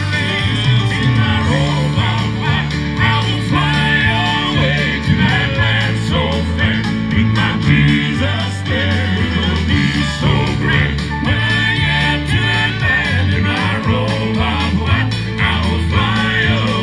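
Southern gospel male quartet singing in harmony into handheld microphones, over instrumental accompaniment with a bass line and a steady beat.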